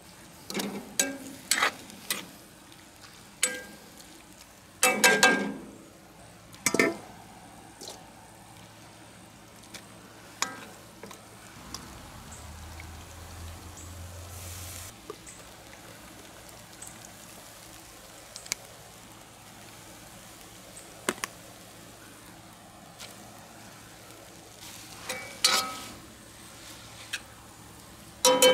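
Metal spatula scraping and clanking against a wok on a charcoal grill, with a faint frying sizzle between the strokes. The clanks come in scattered clusters and are loudest near the end.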